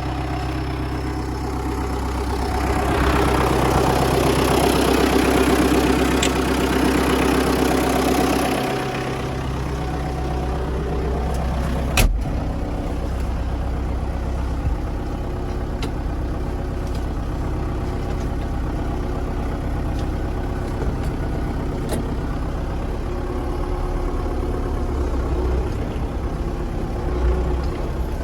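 Farm vehicle engine running steadily, louder for several seconds near the start, with a sharp knock about twelve seconds in.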